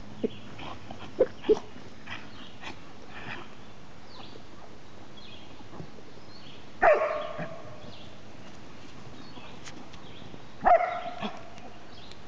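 Dog barking in play: a few short barks in the first second and a half, then two louder, longer barks about seven and eleven seconds in.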